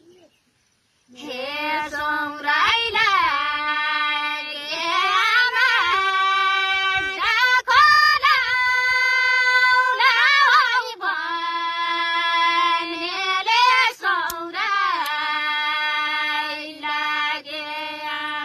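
A high female voice singing a Nepali folk-style melody unaccompanied, in long held notes that glide up and down between phrases. It begins about a second in, after a brief silence.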